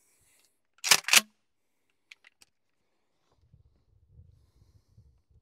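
Mossberg 590 Cruiser pump-action shotgun being racked: two sharp metallic clacks about a quarter second apart as the slide goes back and forward to chamber a shell, followed about a second later by a few faint clicks.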